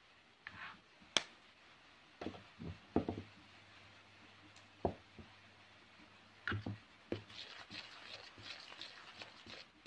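A spoon clicking and knocking against a mixing bowl as dry ingredients are added, a dozen or so separate taps. From about seven seconds in, a quick run of small ticks and scrapes as flour, sugar and egg are stirred together in the bowl.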